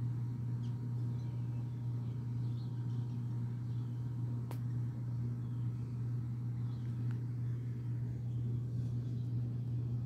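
A steady low machine hum, with a few faint high chirps now and then and one brief tick about halfway through.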